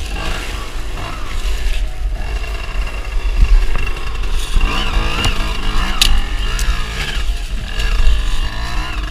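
Trail motorcycle engine revving up and down in repeated surges as the bike is worked up a steep dirt bank, over a steady low rumble.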